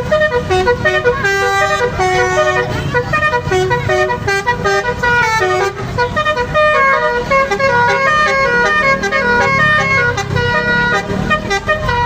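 A bus's Basuri V3 "telolet" multi-tone horn playing a quick tune of short notes that step up and down in pitch. A low rumble runs underneath.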